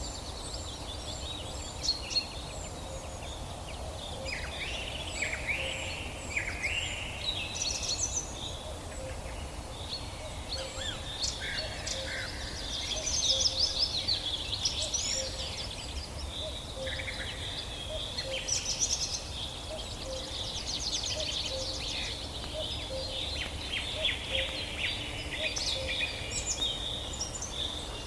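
Several birds singing and chirping together in a forest chorus: overlapping whistled phrases, short repeated high notes and a rapid trill, over a faint steady background hiss.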